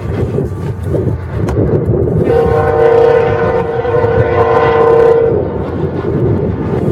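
Locomotive air horn sounding one long blast of about three seconds, starting a couple of seconds in, over a steady low rumble.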